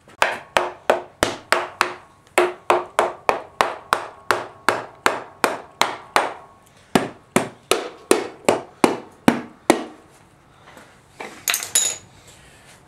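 Ratchet wrench clicking steadily, about three clicks a second with a brief pause, as the valve cover bolts on a 1989 Honda Civic engine are loosened. A short metallic rattle comes near the end.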